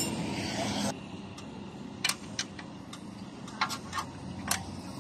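Sharp metallic clicks and clinks of hand tools against a motorcycle's rear wheel assembly, about six of them scattered across the last three seconds, after a brief rush of noise at the start.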